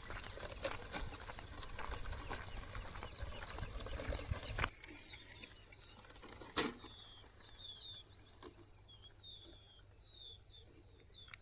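Rural outdoor ambience: a low rumbling noise with small knocks for the first few seconds cuts off suddenly. Insects then buzz steadily and birds chirp in repeated short falling notes, with one sharp click partway through.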